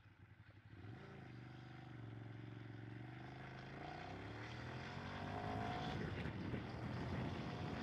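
Ducati Streetfighter 848's L-twin engine pulling away from a standstill: the revs climb steadily, drop about six seconds in, then climb again as the next gear takes up. Wind noise rises with the speed.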